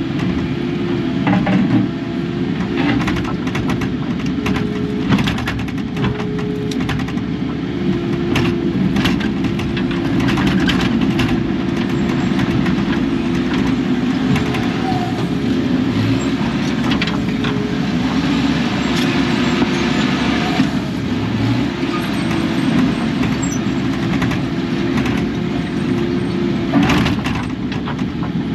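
Kubota KX080 excavator's diesel engine running steadily under load, with repeated short knocks and clanks throughout.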